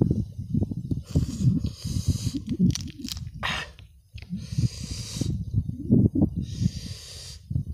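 Close-up eating sounds: chewing and smacking of boiled chicken, with hissing breaths drawn in through the mouth several times.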